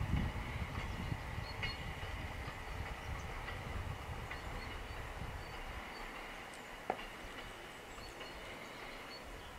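Diesel railcar rumbling low as it travels away over the rails, fading steadily. A single sharp click comes about seven seconds in.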